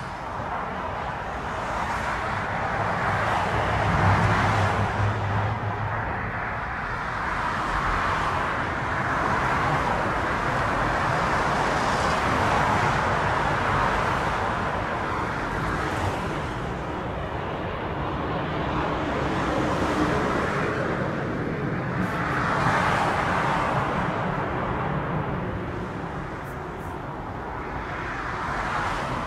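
Twin-engine airliner's jet engines idling on the apron after pushback: a continuous rushing noise that swells and eases every few seconds, with a brief low hum about four seconds in.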